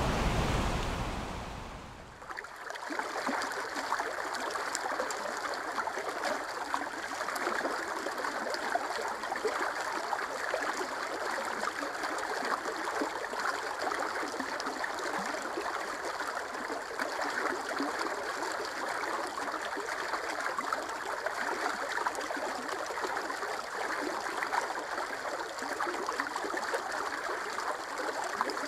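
Running water trickling and gurgling steadily like a stream, starting about two seconds in as a rushing noise fades out.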